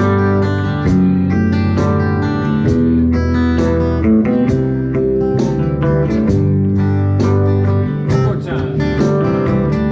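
Live acoustic and electric guitars playing an instrumental passage together: an acoustic guitar strumming a steady rhythm with an electric guitar playing over it.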